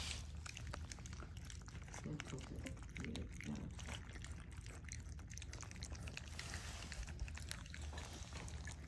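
Several puppies lapping goat's milk gruel from a stainless steel pan: a dense, irregular run of small wet lapping and slurping clicks.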